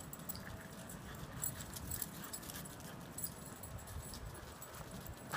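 Two nine-week-old puppies moving about a concrete patio: an irregular scatter of light clicks and jingles from their paws and collars, over a low steady background rumble.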